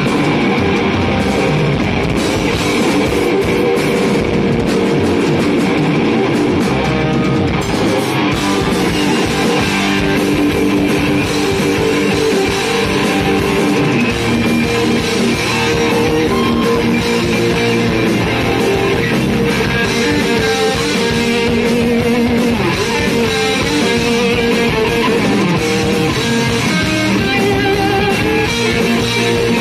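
Rock band playing live and loud with no singing: electric guitars playing melodic lines over drums.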